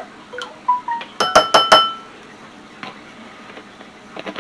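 A measuring spoon tapped quickly against a glass mixing bowl: a run of four or five sharp, ringing clinks, after a few faint clicks.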